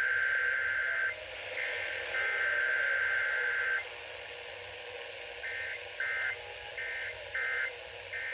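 Emergency Alert System SAME digital data bursts played through a radio: two long bursts of screechy two-tone modem-like signal, then a string of about six short bursts in the second half, the pattern of end-of-message codes.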